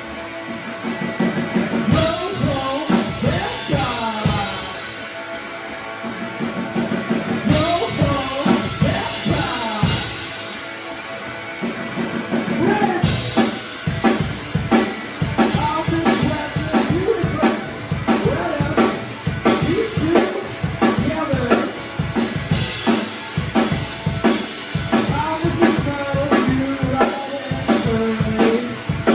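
Live band playing a song: drum kit, guitar and a singing voice. The playing gets louder and busier about twelve seconds in.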